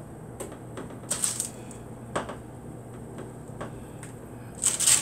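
Light clicks and taps of raw biscuit dough being set and pressed into a metal baking pan, with three short hisses about a second apart over a faint steady low hum.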